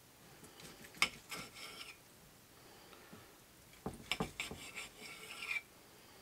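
Steak knife sawing through a grilled steak on a plate, the blade scraping on the plate, with a fork holding the meat. There is a sharp clink about a second in, then a second, busier spell of cutting and scraping from about four seconds in until near the end.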